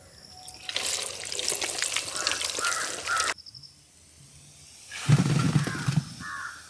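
Hot oil sizzling and dripping from a slotted ladle of freshly fried meatballs, with crows cawing; the sound cuts off suddenly about halfway through, and crows caw again over a low rumble near the end.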